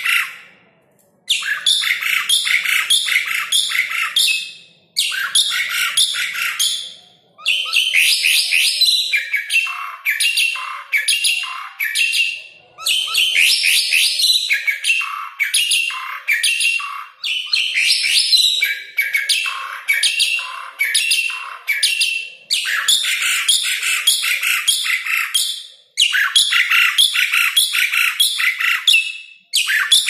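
Asian pied starling (Gracupica contra) singing: bouts of rapid, scratchy notes several seconds long, broken by brief pauses.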